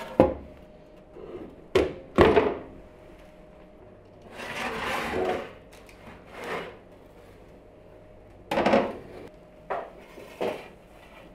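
Kitchen handling sounds: sharp wooden-sounding knocks near the start and about two seconds in, a longer rubbing scrape mid-way, and a few more knocks and scrapes near the end.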